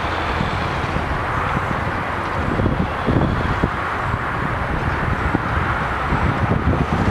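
Wind buffeting the microphone over a steady distant engine rumble.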